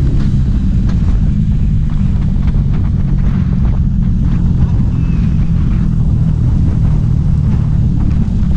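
Wind buffeting the microphone over the steady low drone of a motor scooter's engine and tyres, heard on board while riding at a constant speed.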